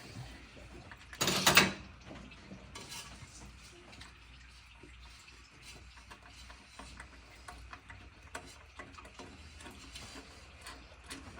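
Hand ratchet wrench clicking in short, irregular runs while bolts are worked loose during an engine teardown. A louder half-second noise cuts in about a second and a half in.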